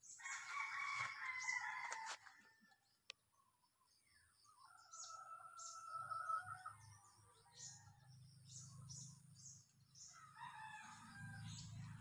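A rooster crowing three times: a long crow right at the start, another in the middle, and a shorter one near the end. Short high bird chirps come between the crows.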